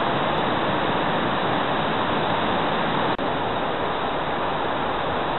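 A steady rushing noise, with a brief dropout about three seconds in.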